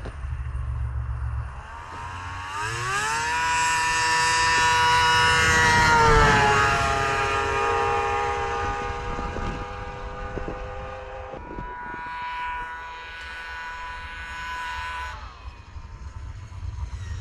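2000 Yamaha SXR 700 snowmobile's three-cylinder two-stroke engine revving up hard and passing by at high speed. It climbs steeply in pitch about two seconds in, is loudest near six seconds, then drops in pitch as it goes past. It holds a steady high note afterwards, which stops about fifteen seconds in.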